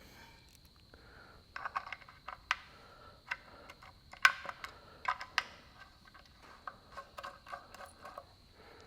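Small 5/16 UNC steel bolts clinking and clicking against the metal seal housing as they are handled and started into their holes: a scatter of light metallic ticks, the sharpest about four seconds in.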